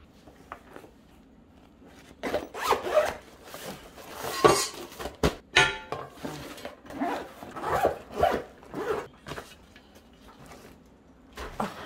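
Zipper on a padded fabric storage bag being run along the bag, in a series of scratchy zip strokes as the bag is handled and closed around a cast-iron wok, with one sharp knock about five seconds in.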